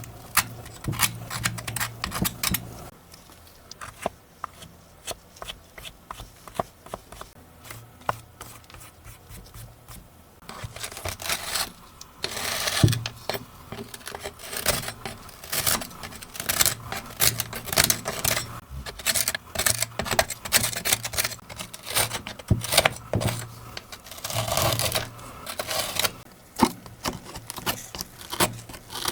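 Plastic clicks and taps from a dirty computer keyboard being cleaned by hand, its keycaps and debris handled. The clicks are sparse for several seconds, and stretches of scraping come about eleven seconds in and again near twenty-five seconds.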